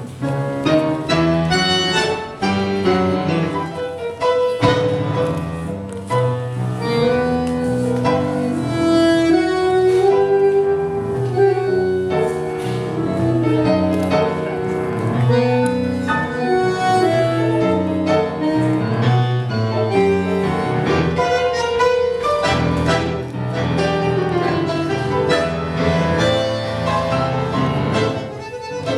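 Live tango music from a duo: piano with a bowed string instrument playing the melody, in a steady rhythm.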